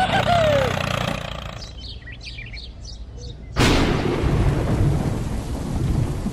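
A small motor's hum fades out and a few faint chirps follow. Then a sudden thunderclap about three and a half seconds in, followed by rumbling thunder and heavy rain.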